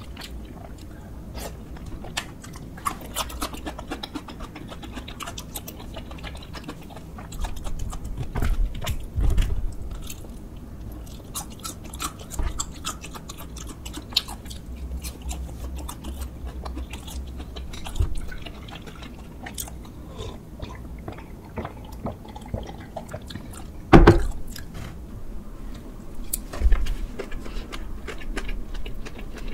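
Close-miked mouth sounds of eating: wet chewing, biting and crunching of boneless glazed fried chicken and tteokbokki rice cakes, with many small crackles and clicks. About three-quarters of the way through there is a single sudden loud thump.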